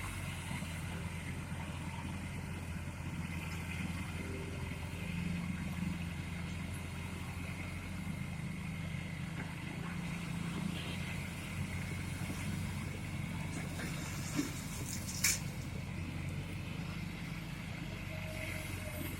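Excavator's diesel engine running steadily with a low hum, and two short sharp clicks about three-quarters of the way through.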